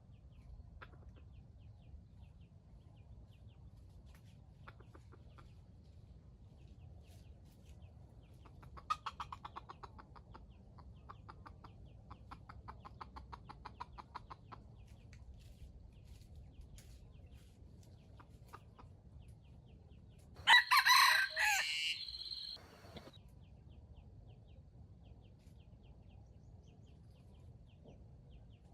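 Chicken clucking in two quick runs of rapid notes, then a loud rooster crow about twenty seconds in, lasting about two seconds.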